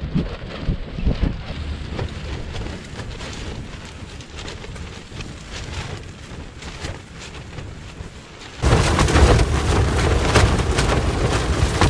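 Wind buffeting the microphone: a gusting low rumble with irregular thumps. About three-quarters of the way in it jumps suddenly to much louder, harsher wind noise.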